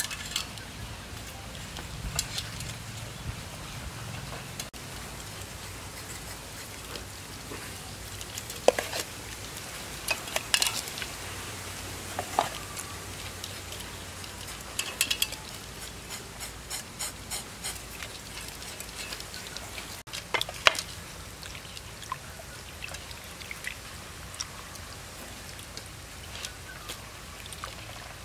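Catfish being cleaned by hand in a stainless steel pot: scattered clinks and scrapes against the metal, with wet rubbing and handling of the salted fish and water.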